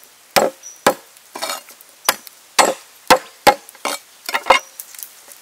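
Cleaver chopping down onto a wooden board while slicing a firm root into pieces: about a dozen sharp chops at an uneven pace, roughly two a second.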